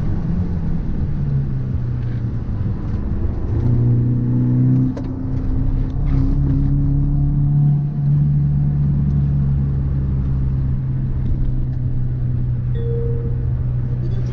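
A car driving, its engine and drivetrain making a steady drone that rises in pitch about four seconds in as it picks up speed, then holds steady with a deeper low hum for a few seconds. The owner asks whether an abnormal noise comes from a driveshaft or a wheel hub.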